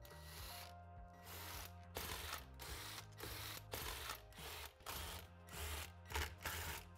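Hand ratchet wrench clicking in quick runs while loosening transmission case mounting bolts, with soft background music under it.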